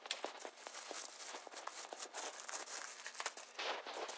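Plastic film crinkling with small clicks and knocks as a clear plastic component case is handled and set down into a cardboard box, with a louder rustle near the end.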